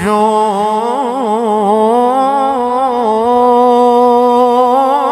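A man's voice in melodic Quran recitation, amplified through a hand-held microphone, holding one long ornamented note. The pitch turns and wavers in quick melismatic runs in the first few seconds, then settles into a steady hold near the end.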